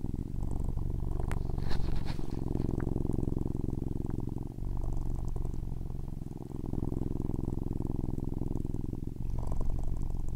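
Tabby cat purring loudly right at the microphone, a fast, steady rumble with short dips every two to three seconds. A few faint crackles sound about two seconds in.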